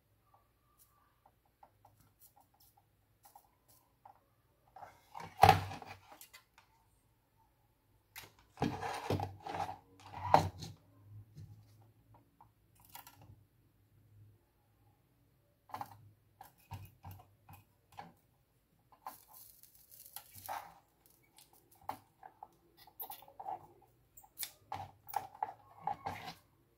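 Scattered taps, knocks and light scrapes from handling a motherboard and hand tools on a workbench during desoldering, with one sharp knock about five seconds in and a busier run of knocks a few seconds later.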